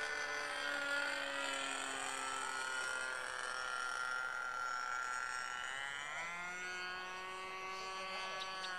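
Radio-controlled model airplane's motor whining steadily, its pitch sliding slowly down, then rising and settling into a new steady tone about six seconds in.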